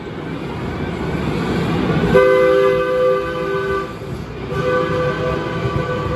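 DART light rail train moving past, its running noise building, with two long horn blasts: the first about two seconds in, the second starting about half a second after the first stops.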